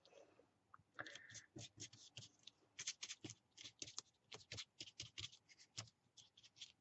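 Stiff flat paintbrush brushing over a paper-covered jigsaw-puzzle piece: faint, quick scratchy strokes, several a second, starting about a second in.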